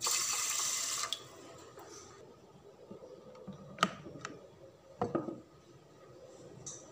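Water poured onto uncooked rice in a rice cooker's inner pot, a splashing pour that stops after about a second. Later comes a sharp click and then a short clatter as the rice cooker's lid is unlatched and opened.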